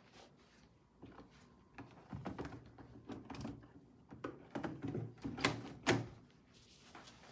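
Plastic floor mats sliding into and out of a plastic brooder's compartments: scattered light clicks and knocks of plastic on plastic, loudest about five to six seconds in.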